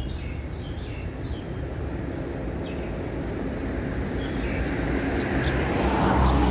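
Street traffic noise: a steady low rumble that builds as a car approaches and passes close by, loudest about six seconds in.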